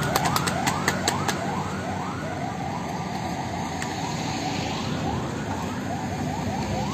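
Siren giving a fast yelp, short rising wails repeating about two or three times a second, over steady street traffic noise. A quick run of sharp ticks sounds in the first second or so.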